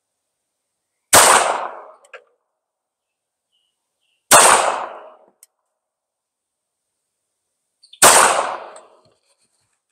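Three pistol shots from a Beretta 84 in .380 ACP, fired slowly and a few seconds apart. Each shot rings out and fades over about a second.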